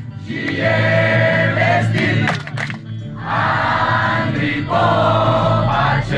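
A group of people singing together in chorus, in phrases with a short break about two and a half seconds in.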